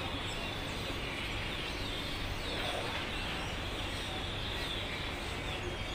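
A flock of small birds chirping and twittering in a continuous chorus, over a steady low background rumble.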